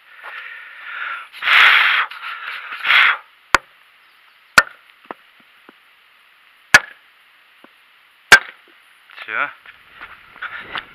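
Metal oil centrifuge rotor from a YaMZ-238 diesel struck down onto a wooden stump four times, sharp separate knocks a second or two apart with the last one the loudest, to knock out its inner parts. Rustling and scraping of the part being handled comes before the knocks.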